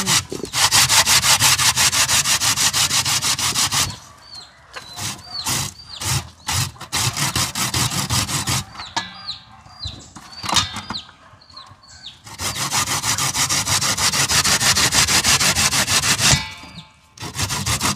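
Vegetables being grated by hand: quick, continuous scraping strokes for about four seconds, a long pause of several seconds with only a few scattered strokes, then quick grating again.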